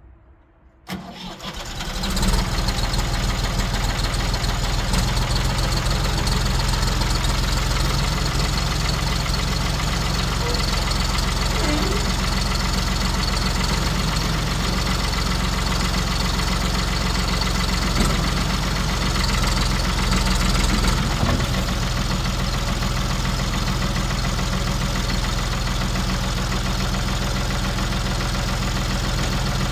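Ford 4500 industrial backhoe's diesel engine starting about a second in, catching within a second or so, then running steadily at idle.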